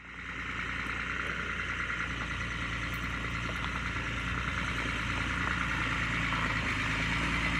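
Steyr 12M18 truck's diesel engine running at low speed as the truck rolls slowly closer, fading in at the start and growing gradually louder.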